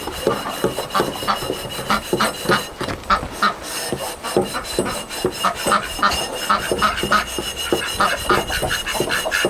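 Green Scotch-Brite pad scrubbed back and forth on an oiled sawmill band blade in quick, uneven strokes, several a second, working out a rough spot on the steel.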